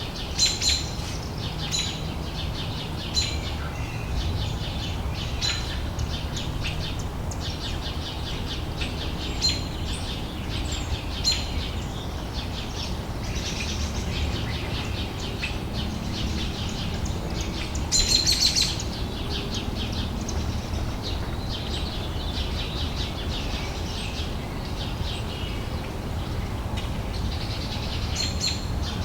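Outdoor summer ambience: several small birds chirping in short repeated calls, with a denser, louder flurry of chirps about two-thirds of the way through, over a steady low background rumble.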